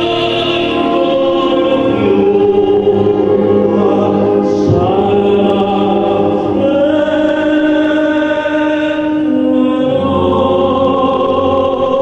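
A male tenor singing long, held operatic-style notes over musical accompaniment. The notes change pitch every two to three seconds.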